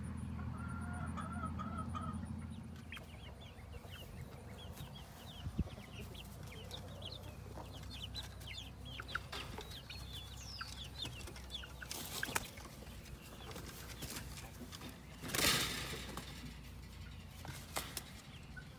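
Young chickens peeping with high, quick falling chirps and clucking. There are rustling bursts of wing flapping, the loudest about fifteen seconds in.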